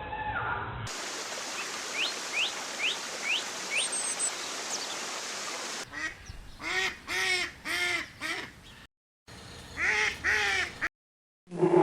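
Farm poultry calling: a run of short calls, each rising and falling in pitch, about two a second, then a second shorter run after a break. It is preceded by a few quick high rising chirps over a steady hiss.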